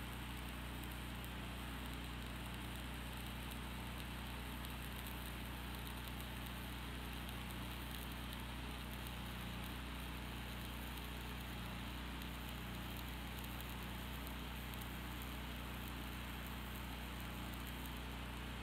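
Stick welding arc burning a 3/32-inch 6013 rod, a steady crackling sizzle, over the steady low hum of a Lincoln Ranger 225 engine-driven welder running.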